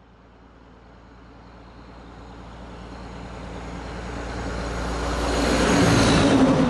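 Large truck approaching and passing, its engine and tyre noise growing steadily louder to the closest point near the end.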